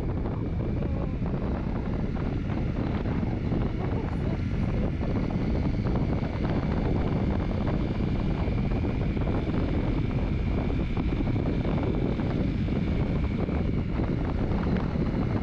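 Motorcycle running steadily while riding, with heavy wind noise on the microphone.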